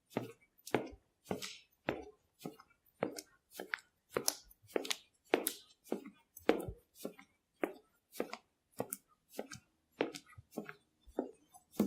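Footsteps walking at a steady pace, just under two steps a second, each step a short sharp tap.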